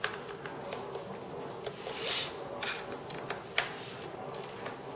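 Scattered light clicks and scrapes of a small screwdriver and fingers working the bottom-case screws of an aluminium MacBook Pro, with a brief rubbing hiss about two seconds in.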